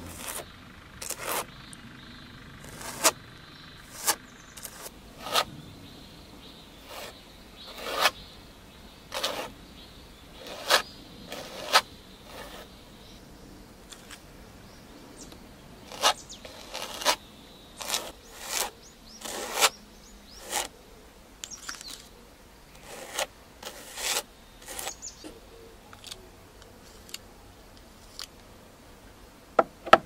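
Metal palette knife scraping and spreading thick white texture paste over a canvas in short strokes, one every second or so, with a pause of a few seconds about halfway.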